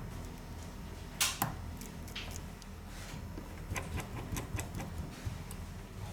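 Small sharp clicks and taps of a phone and hand tools being handled on a workbench: two sharper clicks about a second in, then scattered fainter ones, over a low steady hum.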